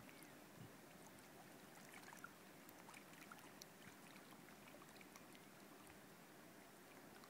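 Near silence: faint lakeshore ambience, with small waves lapping and a few faint ticks.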